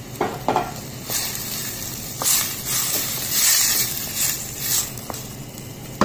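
Wooden spoon stirring a wet filling of onion, tomato, corn and olives in a stainless steel pot, with a sizzling hiss that swells and fades. A few light clicks of the spoon against the pot.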